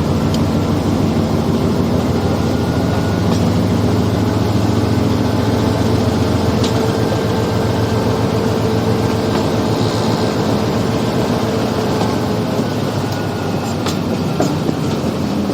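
GE U20 diesel-electric locomotive running with a train under way. A steady engine drone with a few sharp clicks of wheels on the rails.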